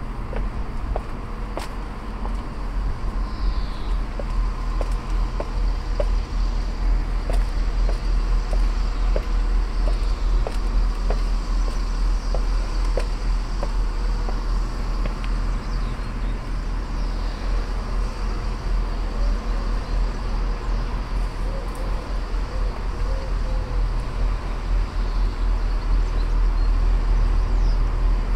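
City street ambience: a steady low rumble of road traffic, with footsteps walking at an even pace on pavement and a few faint bird chirps.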